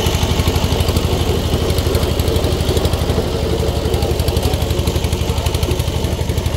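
Walk-behind power tiller engine running steadily with a rapid, even chugging beat.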